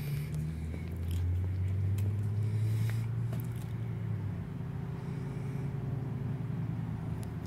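Low engine hum that swells over the first few seconds and then eases off, like a motor vehicle going by.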